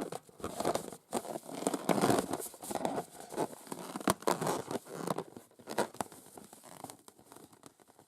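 Long acrylic nails scratching and tapping on rubber balloons: an irregular run of dry scratches and sharp taps that thins out and fades away near the end.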